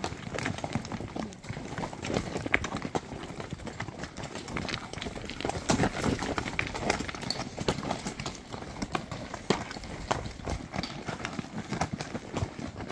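Hooves of several walking horses clopping and clattering on a rocky, loose-stone trail: a steady, irregular stream of knocks.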